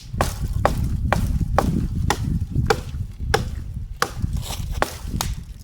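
Wood being chopped from a fallen tree for firewood: a rapid series of sharp chopping strikes, about three a second, with a low rumble underneath.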